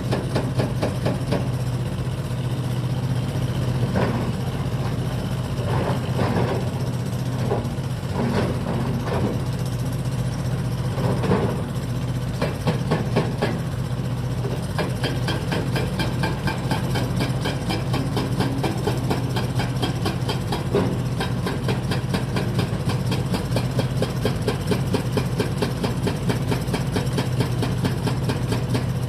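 Diesel engine of heavy machinery running steadily at a constant pitch. Several sharp knocks or clanks stand out between about 4 and 14 seconds in.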